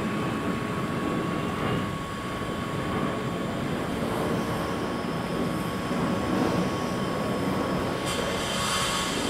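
Rebuilt Merchant Navy class 4-6-2 steam locomotive 35028 Clan Line standing with steam escaping, a steady roaring hiss, with a brief louder hiss about eight seconds in.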